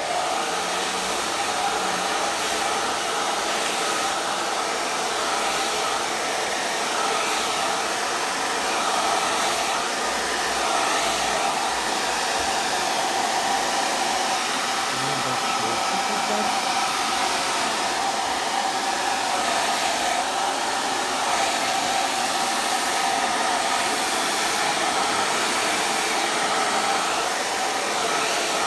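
Handheld hair dryer running steadily while blow-drying hair at the roots: a continuous rush of air with a steady hum in it.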